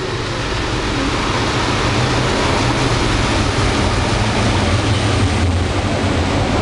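DF11 diesel locomotive passing through the station at speed, its engine giving a low drone over the rushing rumble of the train, then the passenger coaches clattering past on the rails. The sound builds over the first couple of seconds as the locomotive arrives and then stays loud.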